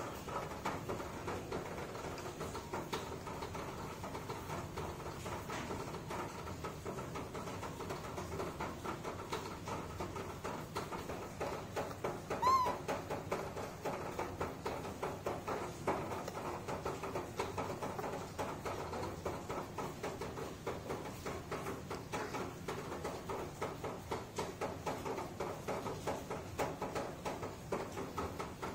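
A newborn monkey gives one short, high-pitched squeaking call about halfway through, over a steady background of soft rapid clicking and rustling from the bottle and towel handling.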